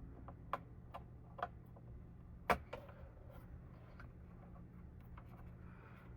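A few small, sharp clicks and taps of a CPU being handled and seated in the motherboard's socket, the loudest about two and a half seconds in, over a faint steady hum.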